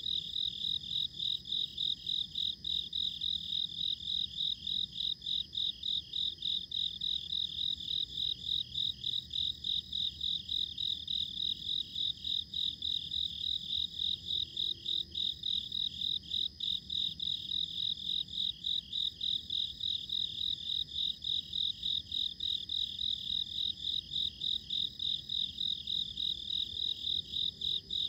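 Crickets chirping in an even, unbroken rhythm of a few high-pitched chirps a second, over a fainter steady high trill.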